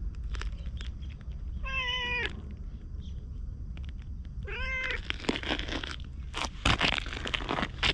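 Orange tabby cat meowing twice, each call short and held on one pitch, about two seconds in and again around four and a half seconds. After that, a run of scratchy rustles and crunches.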